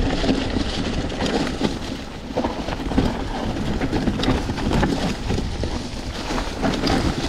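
Mountain bike riding down a dirt trail: tyres rolling over the ground with a steady stream of knocks and rattles from the bike over bumps, and wind rumbling on the microphone.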